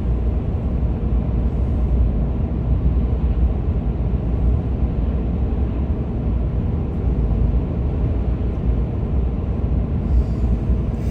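Steady low rumble of a four-wheel-drive vehicle on mud-grip tyres driving along the road, with engine and tyre noise heard from inside the cabin.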